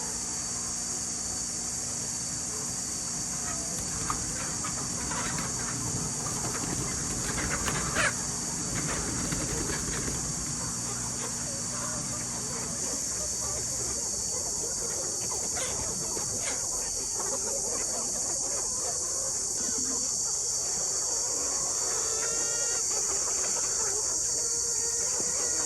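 Chickens clucking and calling here and there, over a steady high-pitched hiss, with a short run of repeated calls near the end.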